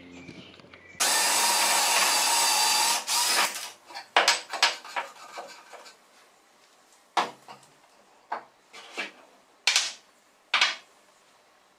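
Power drill with a long wood bit boring into a pine block: a loud steady run of about two seconds that starts and stops abruptly. After it, a string of short, sharp wooden knocks and clicks as the pieces are handled.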